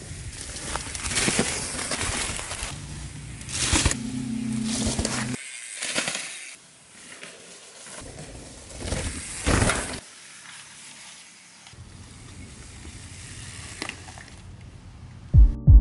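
Mountain bike tyres rolling over a dry forest trail, crunching on leaves and twigs in swells as the rider comes past several times. Music with a steady beat starts near the end.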